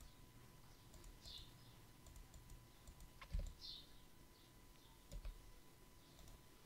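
Near silence with a few faint computer mouse clicks and a soft low knock about three and a half seconds in.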